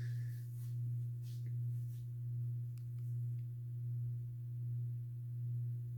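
SMC-UB42 ceiling fan running on low speed: a steady electric motor hum that swells and fades gently about once a second.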